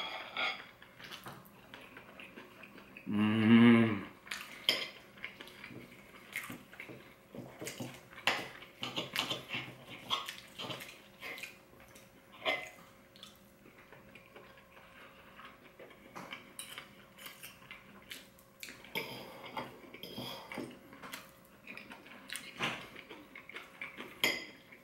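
Knife and fork clinking and scraping on a plate while cutting braised beef short rib, in scattered short clicks. About three seconds in, a brief hummed 'mmm' from the eater is the loudest sound.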